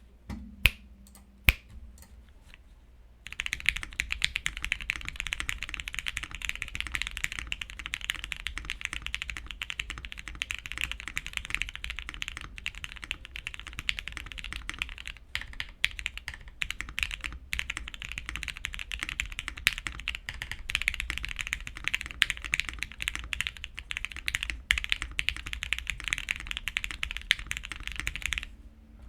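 Typing on a custom mechanical keyboard: a Matrix 1.2 replica with lubed Gateron KS-3x47 Clear linear switches on a polypropylene plate, burger-mounted with O-rings. A few single keystrokes come first, then fast continuous typing runs from about three seconds in until just before the end.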